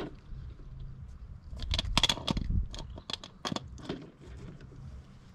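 A run of light metallic clicks and clinks from hand tools at work on the ATV, mostly in the middle stretch, irregular at about four or five a second.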